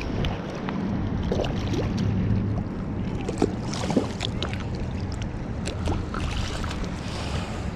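Steady low motor drone with wind noise on the microphone and scattered light clicks.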